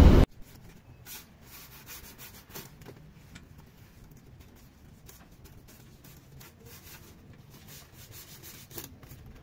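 Faint rubbing and scraping of a synthetic fibre strip being pulled and woven across a rocking chair's metal seat frame, with scattered short scuffs.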